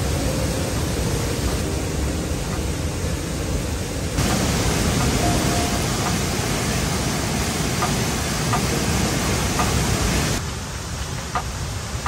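Steady rush of a waterfall's falling water. It gets louder at a cut about four seconds in and drops back near the end.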